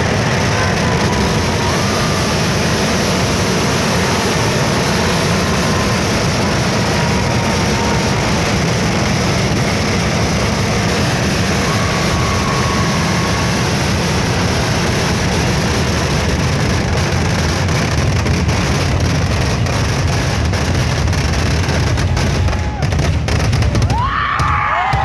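Kerala vedikkettu fireworks: a dense, unbroken barrage of firecracker blasts running together into one continuous rumble. It thins out shortly before the end, and a crowd starts cheering and whistling.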